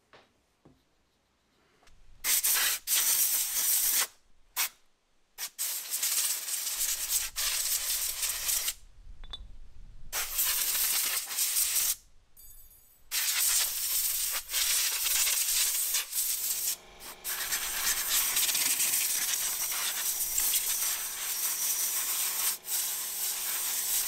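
Compressed-air blow gun on a hose hissing in repeated blasts of one to several seconds, each starting and cutting off sharply.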